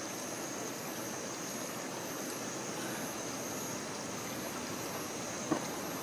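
Night insects chirring: a steady high trill with a higher chirp pulsing over it, over a steady low rushing hiss. About five and a half seconds in there is a single small metallic click as the wire-handled lid on the alcohol stove's pot is handled.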